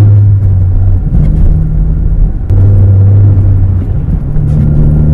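Chevrolet Camaro's V6 engine and road rumble heard from inside the cabin while driving: a loud, low drone whose pitch steps up and down a few times.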